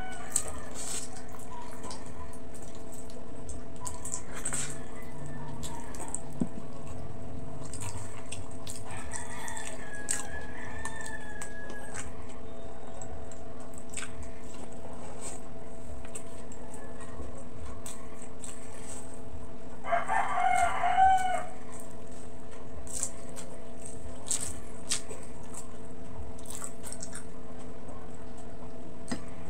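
Chewing and mouth clicks from eating over a steady background hum, with a rooster crowing in the background: faintly about ten seconds in, then louder for about a second and a half around twenty seconds in.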